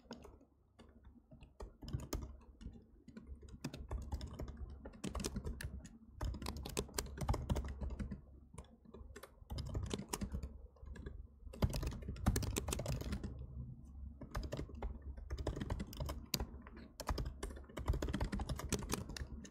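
Typing on a computer keyboard: rapid keystrokes in bursts, broken by short pauses.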